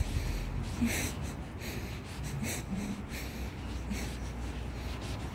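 A person breathing while walking, short hissy breaths about every second or so, over a low steady rumble of wind on the phone's microphone.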